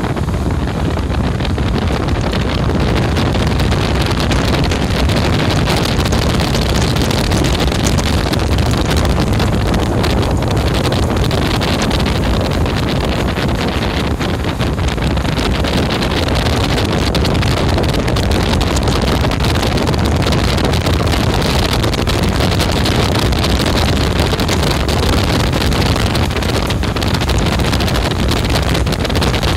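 Tohatsu 90 hp outboard motor running steadily at high speed, driving an aluminium jon boat, with wind buffeting the microphone and water rushing past the hull.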